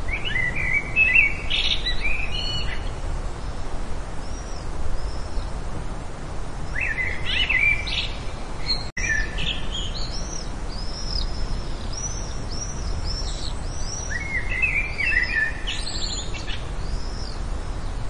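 Small songbird singing: bursts of quick twittering chirps every few seconds, with runs of short, high, thin notes in between, over a steady outdoor background hiss.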